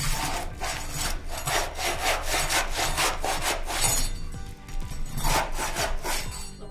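Flat pry bar scraping back and forth under asphalt shingles in quick rasping strokes, about five a second, then a pause and a few more strokes. The bar is loosening the shingle courses and clearing nails and staples so a roof-mount flashing can slide up under them.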